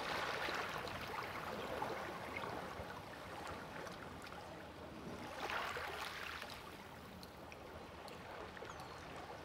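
Soft outdoor ambience: an even hiss with no voices, swelling gently at the start and again about five and a half seconds in.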